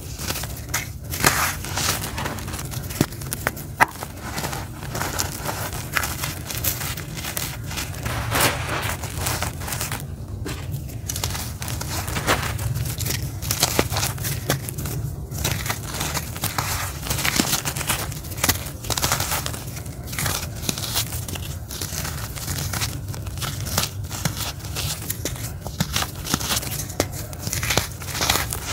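Hands squeezing and crumbling dry lumps of charcoal into grit: a continuous gritty crunching and crackling, with frequent sharp snaps as pieces break.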